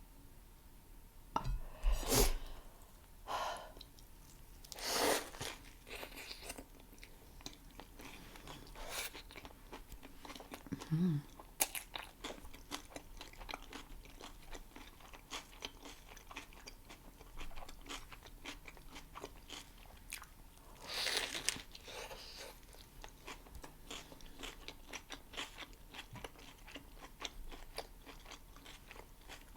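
Close-miked chewing and biting of a homemade plant-based Impossible burger: steady wet, crunchy chewing with a few louder bites through the stretch.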